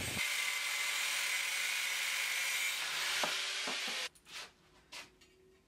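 Angle grinder with a thin cut-off disc cutting a slot into a steel tube clamped in a vise: a steady, loud grinding hiss with a high whine. It stops abruptly about four seconds in, followed by two short knocks.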